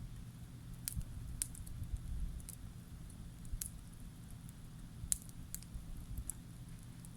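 Wood campfire crackling: scattered sharp pops, roughly one a second, over a steady low rumble.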